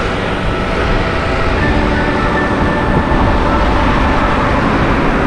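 Wind rushing and buffeting on the camera's microphone while riding a mountain bike, a dense low rumble, with faint background music underneath.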